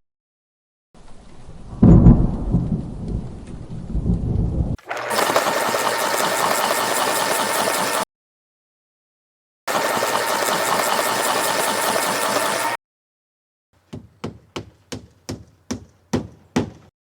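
Thunder rumbling with rain, cut off suddenly; then a steady loud whooshing sound with a faint hum, played twice for about three seconds each with a short silence between; then a run of about nine sharp knocks.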